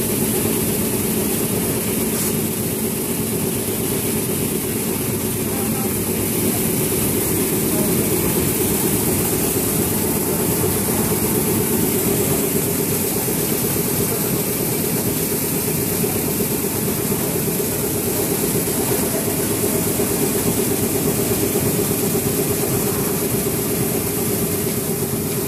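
Seed-cleaning machinery running steadily: a constant mechanical hum with an even hiss over it, unchanging throughout.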